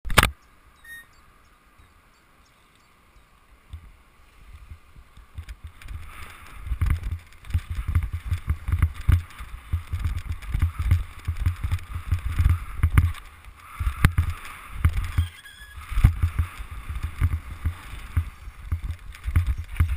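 A sharp click at the very start, then a few quiet seconds. After that, wind buffets a bike-mounted action camera's microphone in rapid, uneven gusts, over the hiss of knobbly bicycle tyres rolling on a dirt jump track.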